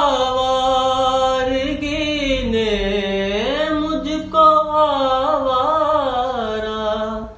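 A man singing a ghazal unaccompanied, drawing out one long phrase of held, wavering notes that glide down and back up, ending just at the close.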